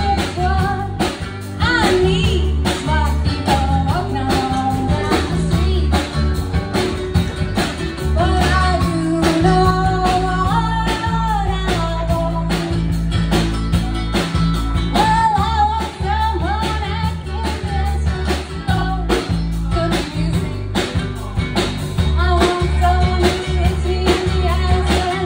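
Live band playing a rock/country-style song: acoustic guitar with bass and drums keeping a steady beat, and a wavering melody line carried on top.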